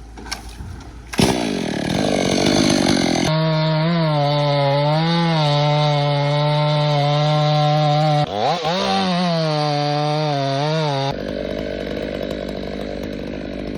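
Chainsaw revving up about a second in, then running at full throttle under load, its pitch sagging and recovering as it works through the cut, with one deep dip and climb back near the middle. It drops to a quieter, rougher sound about eleven seconds in. It is bucking the butt end off a felled hemlock.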